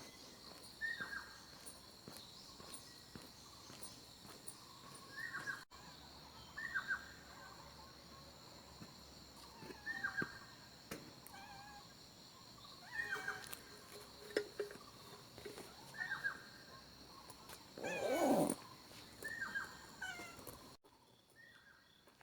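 A small animal giving short, falling calls every one to three seconds, with one louder, longer call about eighteen seconds in, over a steady high-pitched drone of insects.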